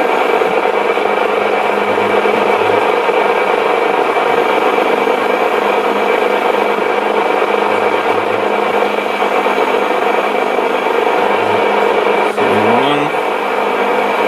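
Sony ICF-2001D shortwave receiver tuned to the 40-metre band in lower sideband, its speaker giving a steady hiss with crackling and buzzing. The whir of a 3D printer runs underneath, and a short rising tone comes through near the end.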